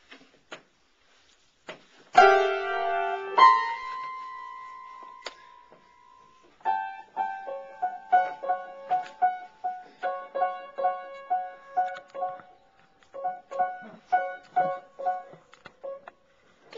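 A toddler playing an upright piano by pressing keys with flat hands. About two seconds in, two loud clusters of notes ring out and slowly fade. Then comes a steady plonking of the same few keys, about two or three notes a second, with a short break near the end.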